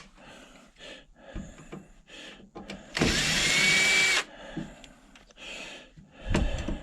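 Power drill backing out a screw: one run of about a second, about three seconds in, its motor whine rising in pitch and then holding. Light clicks and taps from handling come before and after it.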